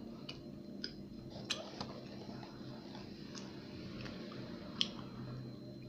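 Faint steady hum, the little noise of a coffee maker running, with about half a dozen light clicks scattered through.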